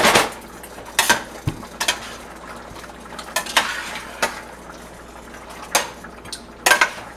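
Metal spoon stirring chicken pieces in sauce in a stainless steel pot: a string of irregular clinks and scrapes as the spoon knocks against the pot's sides.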